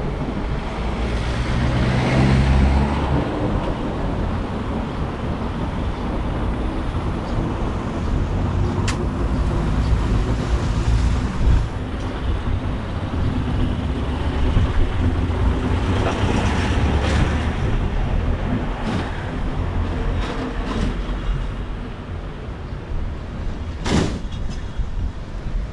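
Road traffic on a city street: motor vehicles running and passing close by, a steady rumble, with one sharp click near the end.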